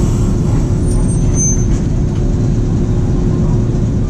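Nagasaki Electric Tramway streetcar running along the street, heard from inside at the front: a steady rumble of wheels and running gear with a constant hum. A brief faint high squeal comes about a second and a half in.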